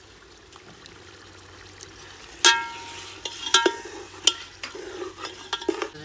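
Chicken frying with a low sizzle in a steel cooking pot over a wood fire. From about two and a half seconds in, a steel spoon and lid strike the pot five or six times, each a sharp clank that rings briefly.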